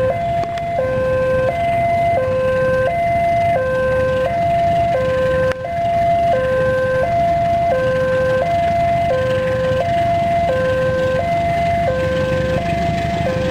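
Railway level-crossing warning alarm sounding a steady electronic two-tone hi-lo, each tone held about 0.7 seconds, over a low rumble, with a single click about five and a half seconds in.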